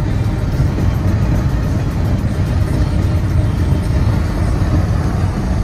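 Steady road and tyre noise inside a car cabin at motorway speed, a deep, even rumble with no breaks, with music playing underneath.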